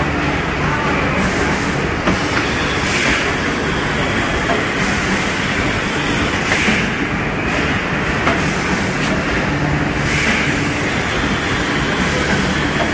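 Steady mechanical din of a running mochi production line, with a brief higher rush of noise returning about every three to four seconds.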